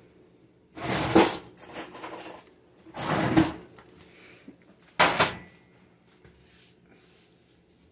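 Four short bursts of handling noise, with things being picked up and put down, spaced a second or two apart.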